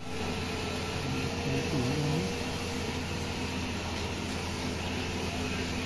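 A steady low machine hum with even noise above it. About two seconds in, a brief faint pitched sound dips and rises.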